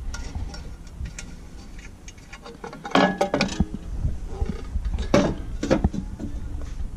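Metal hand tools clinking and knocking against the machine's hydraulic fittings and lines: scattered clicks, with two busier bursts of clanks about three and five seconds in.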